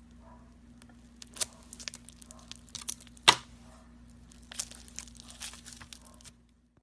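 Slime-filled stress ball being cut open: irregular crackling and tearing clicks, with one sharp snap about three seconds in.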